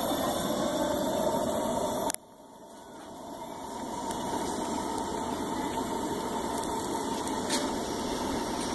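Coleman EvenTemp propane camp stove burner running with a steady rushing noise, which cuts off sharply about two seconds in. A softer steady hiss follows and builds back up over the next couple of seconds.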